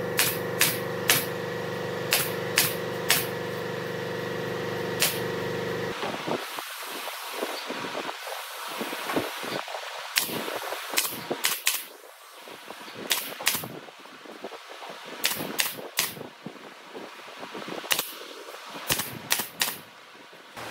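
Pneumatic nail gun firing nails into pine framing: about twenty sharp shots, some in quick pairs, spread irregularly. A steady machine hum runs under the first six seconds and then stops abruptly.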